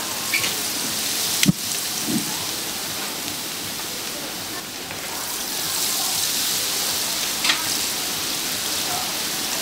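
Batter-coated snacks deep-frying in hot oil: a steady sizzle, with a few sharp knocks, the loudest about a second and a half in.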